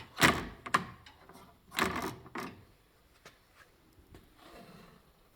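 Loose trim on a car door being handled: a few short scraping rattles in the first two and a half seconds, the loudest right at the start, then a few faint clicks.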